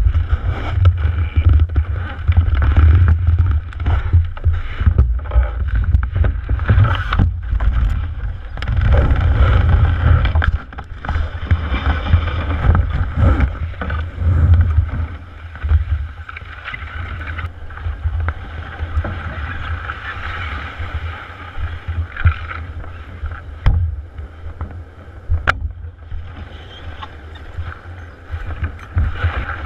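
Handling noise of a canoe carried overturned on a portager's shoulders, heard through a camera fixed inside the hull. There is a steady low rumble, frequent knocks and scrapes as he walks and the hull shifts, and a hissing rush that swells and fades.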